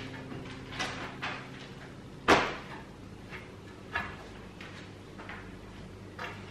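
Household cleaning handling noises: a few scattered knocks and taps as magazines and objects are lifted and set back down on a coffee table while it is wiped, with one sharper knock about two seconds in.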